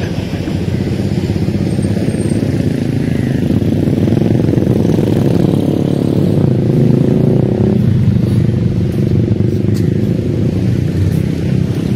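Steady engine noise of motor vehicles running, with one vehicle's pitch rising and then falling around the middle as it passes, and a few faint clicks.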